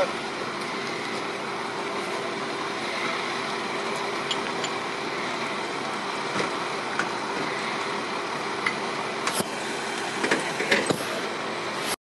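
Tow truck engine running steadily with a constant hum. Scattered short knocks and clanks come through, with a cluster of them near the end.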